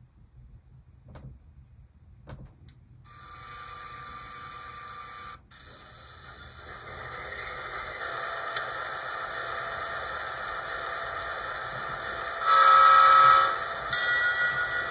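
Digitrax SDXH166D sound decoder playing diesel locomotive sounds through a small model-train speaker. A few faint clicks come first, then an air hiss about three seconds in and a steady diesel running sound from about six seconds. A loud horn blast of about a second comes near the end, followed by a shorter one.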